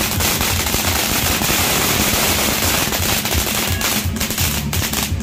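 Platinum Fireworks' Mt. Pinatubo tube fountain firing, a dense continuous crackling hiss of sparks and crackling stars. From about four seconds in the crackle thins into rapid separate pops.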